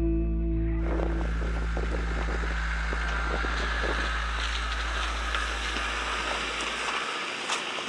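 Land Rover driving away along a gravel track, with engine, stones crunching under the tyres and wind on the microphone, and a few sharp ticks near the end. Background music stops about a second in and its bass fades out over the next few seconds.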